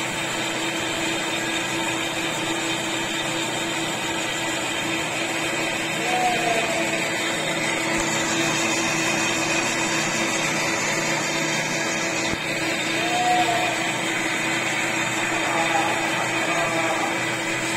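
Metal lathe running steadily under power feed, its motor and gear train humming with several fixed tones as the leadscrew turns and drives the carriage along the freshly reground bed ways.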